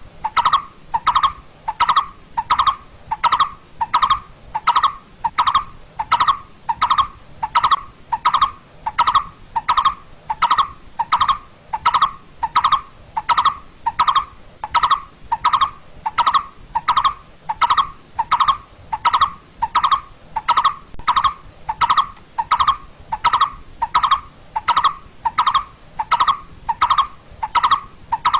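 Coppersmith barbet calling: a long, steady series of short single notes, all at the same pitch, about three every two seconds.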